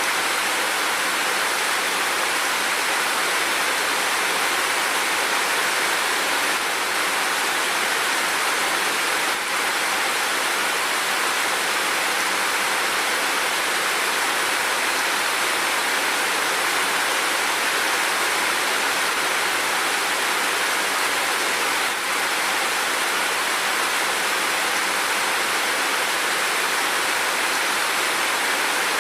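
Steady rain falling, an even unbroken hiss with no separate drops or thunder standing out.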